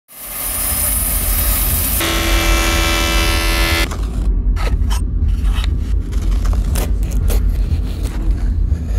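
A hand chisel scraping and cutting into the wooden stock of a handmade speargun, heard as short scraping strokes from about four seconds in over a steady deep rumble. Before that there is a bright hiss for about two seconds, then a held tone that stops just before the scraping begins.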